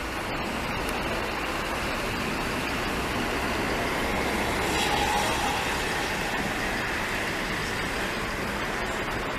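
Large diesel coach bus moving slowly past at close range, its engine and tyres making a steady noise that swells slightly about halfway through.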